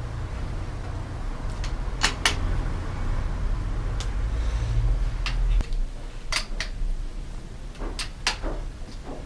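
Metal bicycle parts and a hand tool clicking and knocking as a bike's handlebar and stem are fitted and adjusted on a repair stand, a few sharp knocks at a time. A low hum underneath stops a little past halfway.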